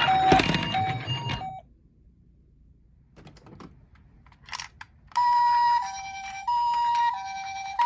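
Toy minicar ambulance's electronic two-tone siren, alternating a high and a low note about every half second over a low rattle. It cuts off after about a second and a half, a few light clicks follow, and the siren starts again about five seconds in.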